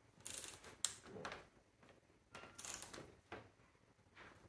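Faint clicks and scrapes of a Torx screwdriver working a stubborn front grille bolt, in a few short clusters. The bolt's head is rounded off, so an oversized bit is being worked into it.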